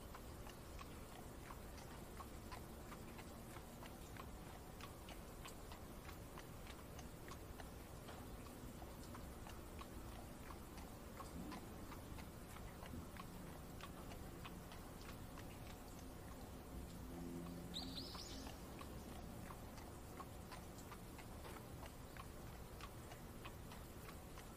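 Faint rain-and-carriage ambience: a steady low rumble with light scattered ticking throughout, and one brief high rising chirp about three-quarters of the way through.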